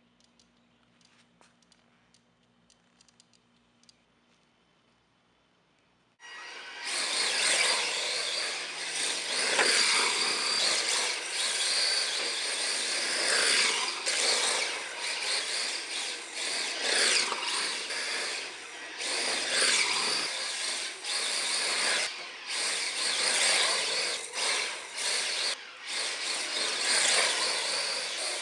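Electric drive of a 1/10 scale Tamiya TA05 RC drift car running, its whine rising and falling as it is throttled, mixed with a hiss. Before it, near silence with a few faint clicks; the car starts suddenly about six seconds in.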